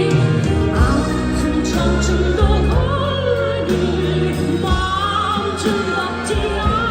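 Singing voices with wavering, vibrato-laden notes over instrumental accompaniment with sustained bass notes.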